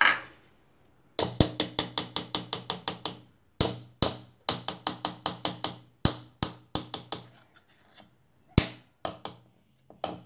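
Metal spoon beating cake batter in a metal cake tin, knocking against the tin's side in quick runs of about seven taps a second, broken by short pauses, with a few single taps near the end.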